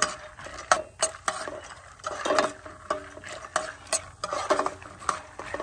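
A spoon stirring and scraping peanuts as they toast in hot oil in a frying pan, with irregular scraping strokes about twice a second over a light sizzle.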